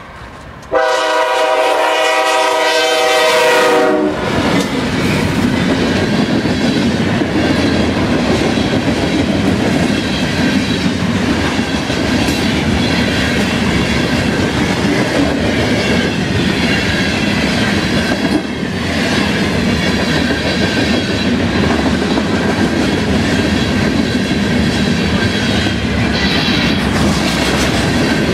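CSX freight locomotive's air horn sounding one loud, chord-like blast of several tones about a second in, cutting off after about three seconds. The freight cars then roll past close by in a steady rumble, their wheels clacking over the rail joints.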